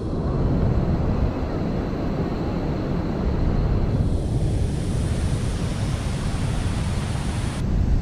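Steady rush of a river's rapids above a waterfall, mixed with wind buffeting the microphone. The sound changes abruptly about four seconds in and again near the end.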